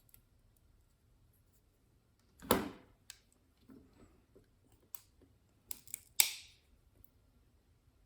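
Hands working on a small plastic security camera and its tools: a knock about two and a half seconds in, then a few sharp clicks and a short scraping sound near the end.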